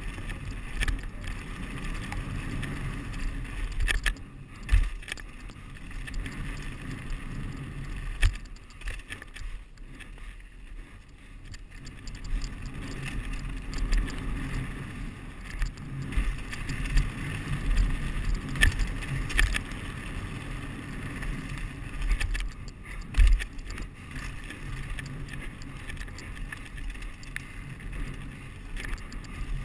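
Mountain bike riding fast down a dirt and loose-stone downhill trail: a steady tyre rumble and chassis rattle over the rough ground, broken by frequent knocks. Two louder thuds of hard impacts or landings come about five seconds in and a little after twenty seconds.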